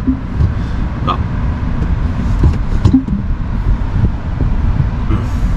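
Low, steady rumble of road and tyre noise inside the cabin of a Tesla Model Y as the electric car moves slowly toward a parking curb, with a few faint clicks.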